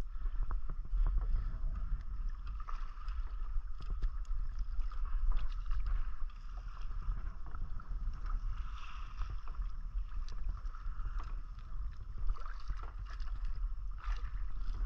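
Wind rumbling on the microphone over a steady wash of sea water around a plastic kayak, with scattered small clicks and rustles of fishing line and a live bait fish being handled.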